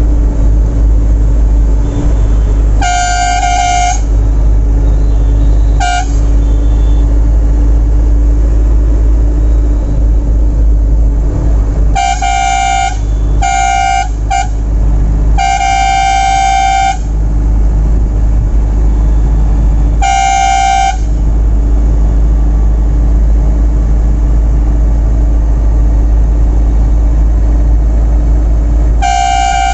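Bus horn honked about eight times in short and longer blasts, over the steady low drone of the bus's engine, heard from inside the driver's cab.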